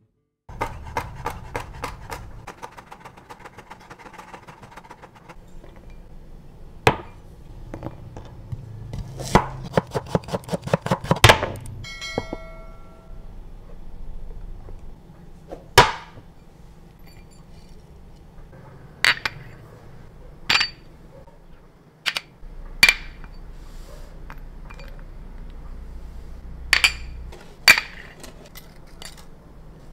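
Glass prep bowls and sauce bottles clinking and knocking on a kitchen countertop as ingredients are measured out. There is a run of quick taps in the first couple of seconds and again about ten seconds in, then single sharp clinks every second or two. After one strike a glass rings briefly.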